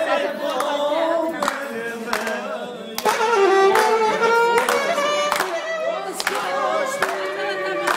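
Festive music with singing and an instrument, with people clapping along in a steady beat, a little under one clap a second.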